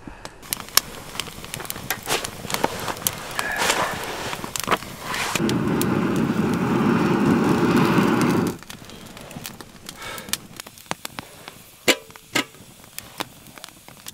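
Wood campfire crackling and popping. About five seconds in, a steady rush of air lasting about three seconds as a fire-blowing pipe is blown into the embers, then the crackling goes on.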